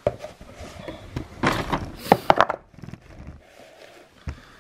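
Handling noises: rustling and light knocks, the loudest cluster about midway, then a small plastic food bowl set down on a table with a thunk near the end.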